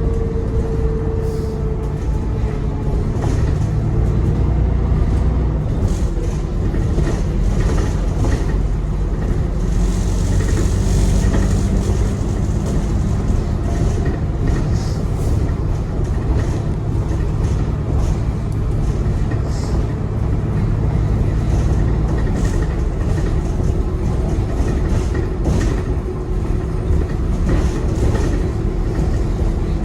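Alexander Dennis Enviro 400 double-decker bus running: a steady low engine and road rumble with a whine that slides down in pitch at the start, and another whine coming in near the end.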